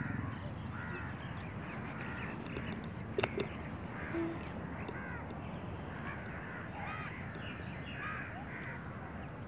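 Several crows cawing over and over, their calls overlapping, with a couple of sharp clicks about three seconds in.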